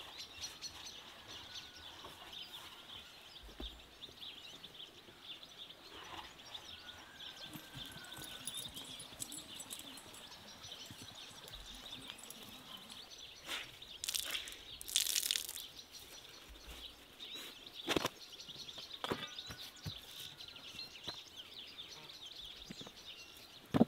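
Faint rural outdoor ambience with birds chirping steadily in the background. A couple of brief rustles a little past halfway, then a few sharp clicks.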